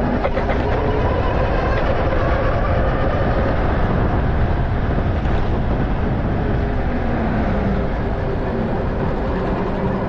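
Dual-motor electric bike ridden along the road at speed: a steady rush of wind and road noise, with a faint motor whine that shifts in pitch.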